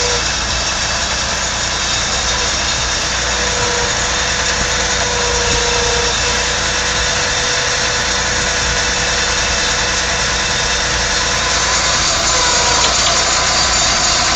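Engine of a forestry machine running steadily and loudly.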